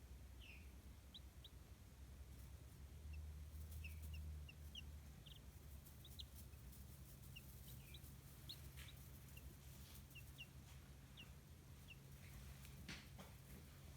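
Chicks peeping: many short, high cheeps scattered irregularly, faint over a steady low hum. There are a couple of soft clicks near the end.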